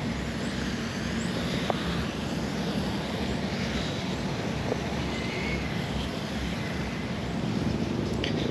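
Outdoor ambience: a steady low rumble of distant road traffic, with a few faint high chirps about a second in.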